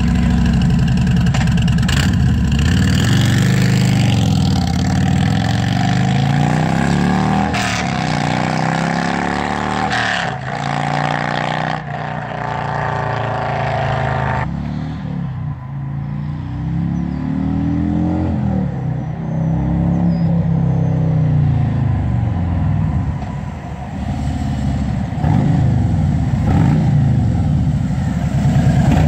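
2017 Harley-Davidson Road Glide Ultra's Milwaukee-Eight V-twin, running through Toxic Outlaw slip-on mufflers with no baffles, revving and accelerating away in several rising sweeps. It fades as the bike rides off, then grows loud again as it rides back near the end.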